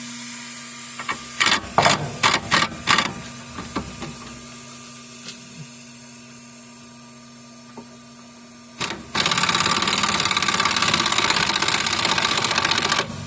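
A steady low hum with a few sharp metallic clanks in the first seconds, then about nine seconds in an impact wrench starts hammering rapidly and steadily on the seized anti-roll bar link nut, freshly heated red-hot to break it loose.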